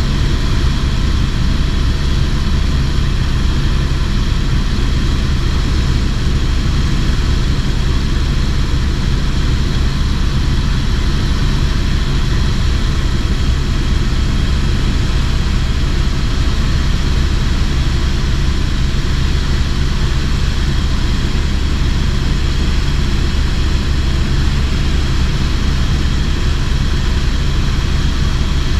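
Helicopter in flight, its engine and rotor running with a steady low drone, heard from on board.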